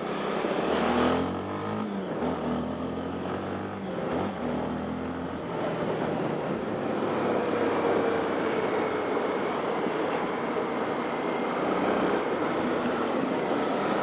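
Honda XRE 300 single-cylinder motorcycle engine running under way, its steady note clearest for the first five seconds or so, with a brief dip about four seconds in. Steady wind and road noise on a helmet-mounted camera's microphone then take over.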